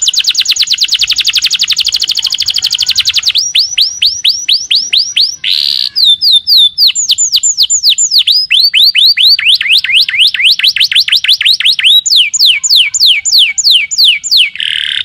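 Domestic canary singing loudly in a long unbroken song of rapid trills: runs of fast repeated notes, each sweeping down in pitch, switching to a new trill every few seconds.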